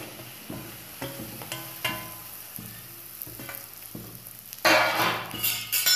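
Grated jaggery dropped into a hot kadhai and moved about in it, with a few light scrapes and knocks. A louder rustling scrape comes near the end.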